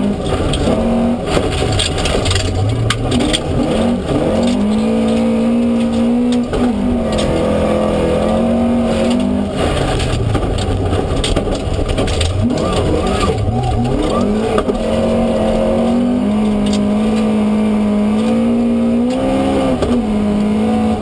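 Tuned Opel Ascona rally car's engine heard from inside the cockpit, driven hard with revs climbing, dropping at gear changes and climbing again several times. Sharp clicks and rattles run through the engine note.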